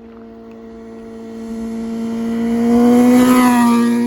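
Motorcycle engine held at steady high revs, growing louder to a peak about three seconds in, with a slight drop in pitch as it passes, then easing off.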